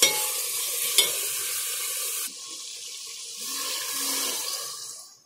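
Chicken and potato curry sizzling in a metal pot as it is stirred with a metal spoon, which clicks sharply against the pot twice near the start. In the second half, water poured in from a glass splashes and hisses on the hot fried masala to start the gravy.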